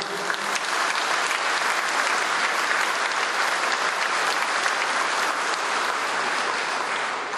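Audience applauding steadily, dying away at the end.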